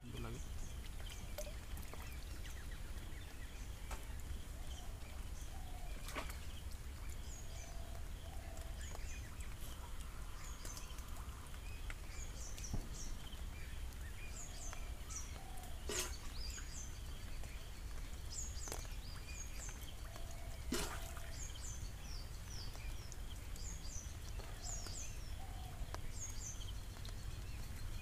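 Outdoor ambience of small birds chirping in short, high, repeated calls over a low steady rumble, with three sharp clicks spread through.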